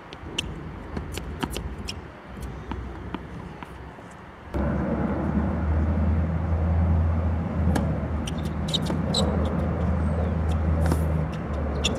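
Tennis rally on a hard court: sharp pops of racket strings hitting the ball and the ball bouncing, at uneven intervals. About four and a half seconds in, a louder steady low rumble starts suddenly and runs under the hits.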